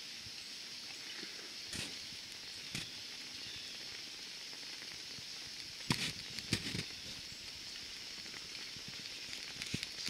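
Lump of pine sap burning with a small open flame in a tin stove under a steel cup of water: a faint steady hiss with a few scattered crackles, the loudest pops about six seconds in.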